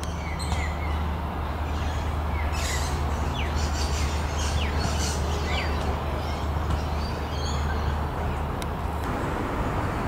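A steady low motor rumble, like traffic or a vehicle engine, with several short, quick bird chirps in the middle.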